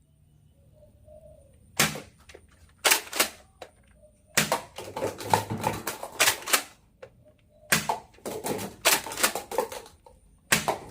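Plastic toy gun clicking as it is worked and fired: a few single sharp clicks, then two rapid runs of clicks and knocks.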